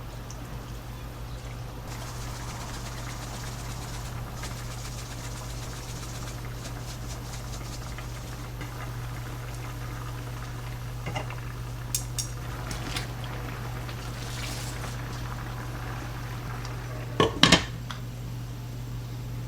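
Food boiling in a pot over a steady low hum. There are a few light clinks of utensils around the middle, and a loud double clatter of dishes or cookware about three-quarters of the way through.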